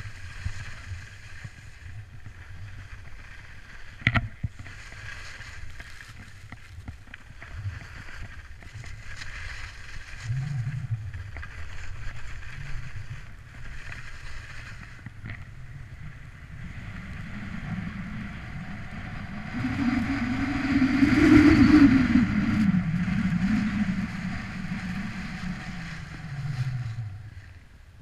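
Skis sliding and carving over packed snow while wind buffets the action camera's microphone, a steady rushing rumble that swells and is loudest about three-quarters of the way through. A single sharp knock about four seconds in.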